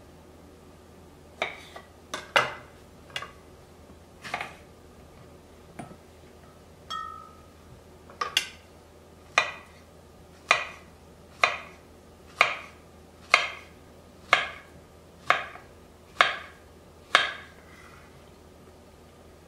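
Kitchen knife cutting through cherry tomatoes and then a peeled banana, its blade knocking on a wooden cutting board: a few scattered knocks at first, then a steady run of about one cut a second through the second half.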